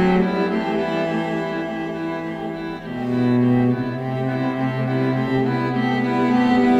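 Slow film-score music of sustained bowed strings led by a cello, moving to a lower bass note about three seconds in.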